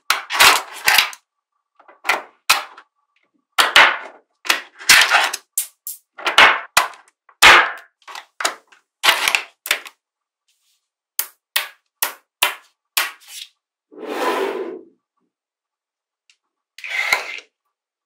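Small magnetic balls clicking and snapping against one another in quick, irregular clusters as they are pushed into rows. About fourteen seconds in there is a short rattling shuffle.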